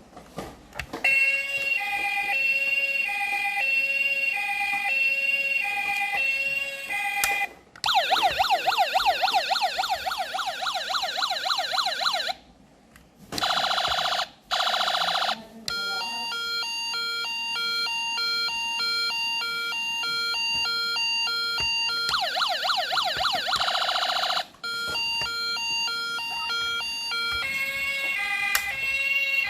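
Electronic toy siren of a 1/32-scale Toyota Hiace ambulance model, switching between siren patterns: a hi-lo two-tone, a fast warbling wail and a short steady tone. There are brief breaks each time the pattern changes.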